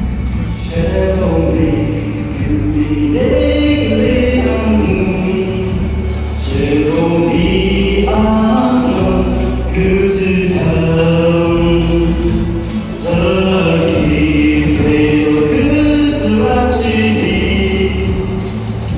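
A man singing a slow song solo into a microphone, amplified over a steady instrumental backing, in long held phrases with short breaks between them.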